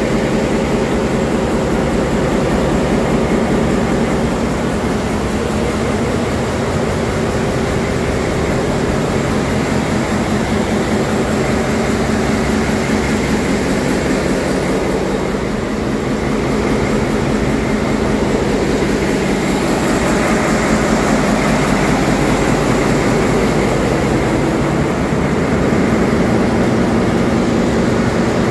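Steady, loud drone of a container ship's engine-room machinery running, a continuous hum under a dense wash of mechanical noise.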